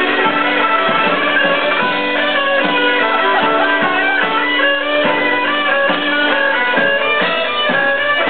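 Live band music led by a fiddle playing fast runs of short notes over a held drone note, with a steady beat underneath.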